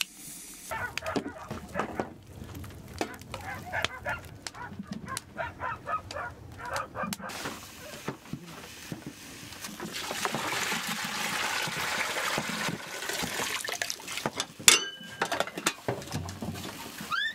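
Fish being handled in a metal basin of water: wet scraping, sloshing and small clinks, with short squeaky sounds among them. About halfway through this gives way to a pot of fish boiling, a steady bubbling hiss, and a single sharp knock comes near the end.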